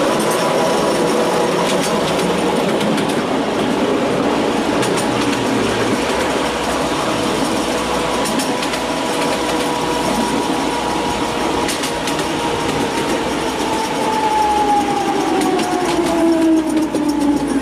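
Miniature railway train running along the track, a steady noise with a constant whine. Over the last few seconds the whine falls in pitch as the train slows.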